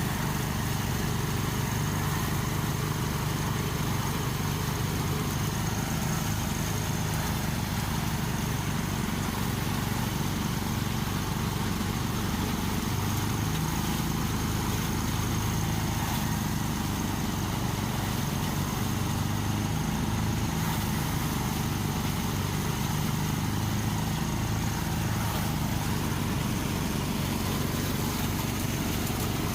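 A small engine running steadily without pause.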